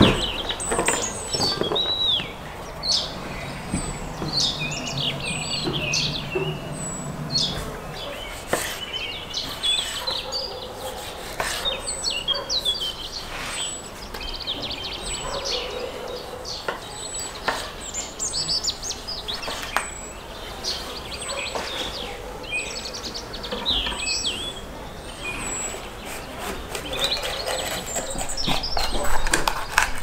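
Birds chirping and singing, with a thin high note repeating about every second and a half. Now and then a kitchen knife knocks through vegetables onto a wooden cutting board.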